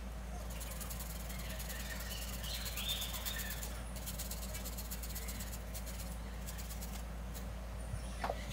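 A garlic clove being grated on a flat stainless-steel hand grater: fast, light rasping strokes, pausing briefly about four seconds in, over a steady low hum.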